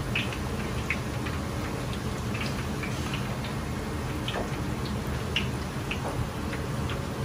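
Panko-breaded chicken thigh pieces deep-frying in oil in a wok: a steady sizzle with irregular crackles and pops, over a steady low rumble.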